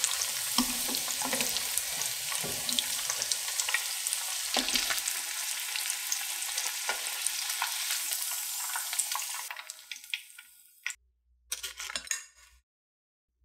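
Oil sizzling and crackling with many small pops around ramen- and potato-coated corn dogs deep-frying. The sizzle fades out about ten seconds in, and a few light clicks follow near the end.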